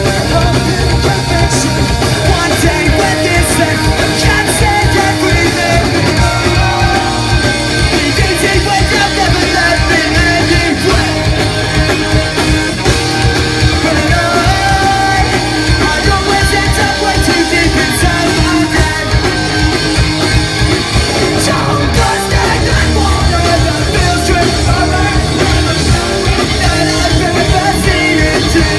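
Live punk rock band playing loud: distorted electric guitars, bass and drums, with shouted singing.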